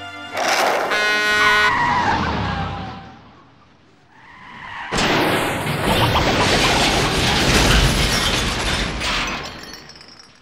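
Cartoon sound effects: a noisy burst with a brief ringing tone and a falling whistle that fades away, then, after a short lull, a sudden loud blast of noise with a deep rumble that lasts about four seconds before dying down.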